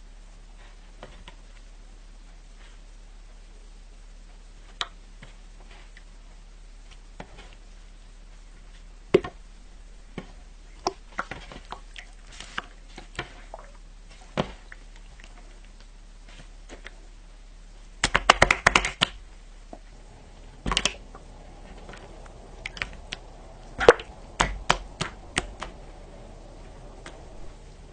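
Jiggly water slime being poked and squeezed with fingers, giving scattered sharp clicks and small pops. About eighteen seconds in there is a dense burst of crackling clicks, and there are more clusters near the end.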